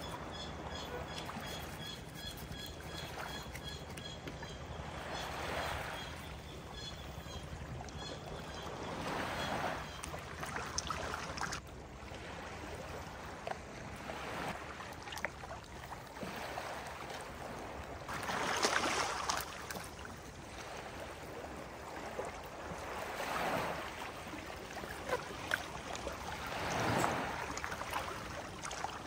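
Sea water washing and splashing at the shore, swelling every few seconds, with the biggest wash about two thirds of the way in. A faint high chirping repeats steadily through the first several seconds.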